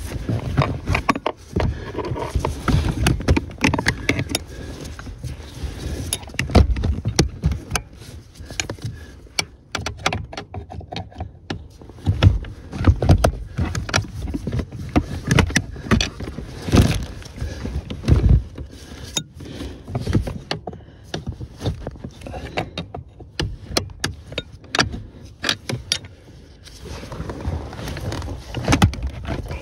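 Irregular clicks and knocks of hands working on a car's clutch pedal assembly, with a gloved hand brushing close to the microphone.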